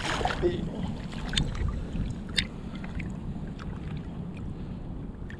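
Wind rumbling on the microphone, with a few faint clicks and taps, one a little clearer about two seconds in.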